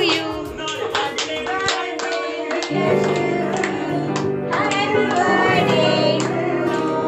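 Voices singing a birthday song with hands clapping along in time, over music with steady low notes that come in about three seconds in.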